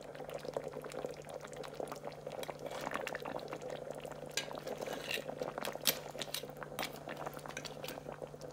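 Curry sauce simmering in a pot of crab and dumplings: a steady crackle of small bubbles popping, over a steady low hum.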